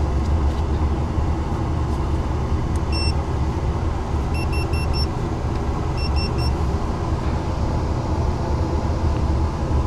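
Short high beeps from a non-contact voltage tester held against the furnace's inducer motor wiring: one beep about three seconds in, then a run of four and a run of three, showing that the motor's supply is live even though the motor does not run. Under the beeps the furnace's blower motor runs with a steady low hum.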